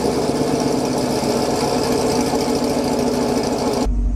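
Chevrolet Camaro SS's 6.2-litre V8 idling steadily and loud just after start-up, heard from behind through catless long-tube headers, an X-pipe and the stock active MPP axle-back exhaust. Near the end the sound turns into a deeper, muffled rumble as heard from inside the cabin.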